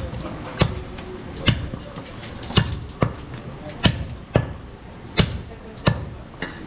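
Heavy butcher's cleaver chopping goat leg meat and bone on a thick wooden chopping block: about nine sharp chops, roughly one every half second to a second, at an uneven pace.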